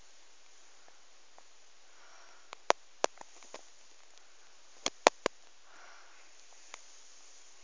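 A sleeping woman breathing audibly through the nose, two soft breaths about three and a half seconds apart. A few sharp clicks come in the middle.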